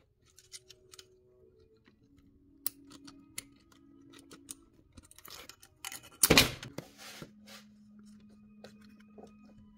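A rubber radiator hose and its spring clamp being worked by hand onto the thermostat housing outlet of a Mercedes M272 V6: scattered small clicks and rubbing, with one louder scrape about six seconds in.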